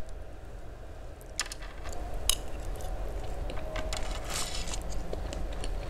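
Close-miked eating sounds: a couple of sharp clicks, then steady chewing of a mouthful of Aceh fried noodles (mie Aceh goreng) with many small wet mouth clicks.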